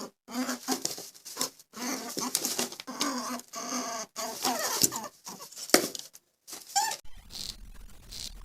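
An animal making a rapid string of short, squeaky pitched calls with brief pauses between them; about seven seconds in it gives way to a quieter scratchy noise.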